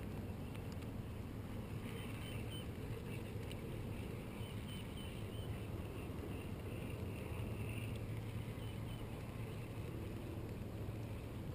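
Steady low hum with an even wash of water and wind noise, heard from a fishing boat on a lake, with faint short high chirps now and then.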